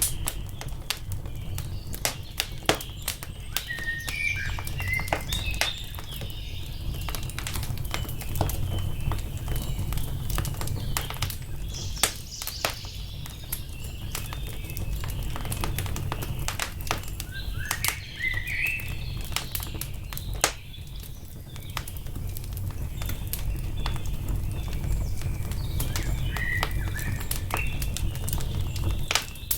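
Wood fire crackling with frequent sharp pops over a steady low rumble, with birds chirping briefly three times.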